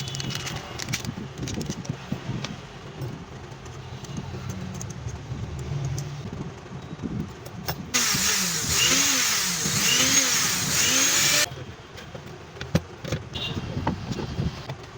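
Mixer grinder's electric motor switched on and run for about three and a half seconds with a loud high whirring hiss, starting about halfway through and cutting off suddenly; low hum and light handling clicks before and after.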